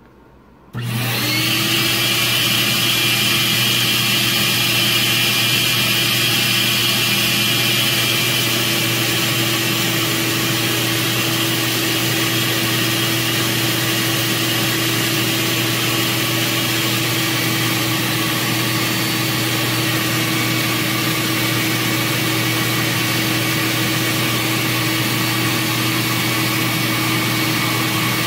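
Cylinder-head flow bench switching on about a second in and running steadily, a motor hum and whine over a rush of air drawn through a Chrysler 318 #302-casting head's port during a stepped valve-lift flow test. Its pitch and level dip slightly about eight seconds in as the lift is raised and the pressure drop falls.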